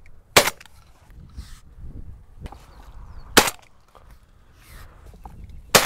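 Three shots from a Browning Maxus semi-automatic shotgun fired at incoming wood pigeons, about three seconds and then two and a half seconds apart.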